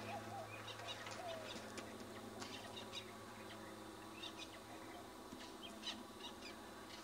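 Birds chirping with many short, high chirps scattered throughout, over a steady low electrical hum.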